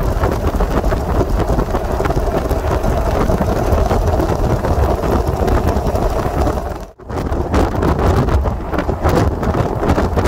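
Wind rushing and buffeting over the microphone from a vehicle moving at highway speed, with road and engine rumble underneath. The sound drops out for a moment about seven seconds in.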